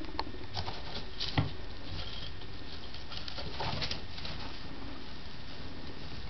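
Guinea pigs moving about in hay and wood-shaving bedding: soft rustling with a few sharp clicks, over a steady hiss.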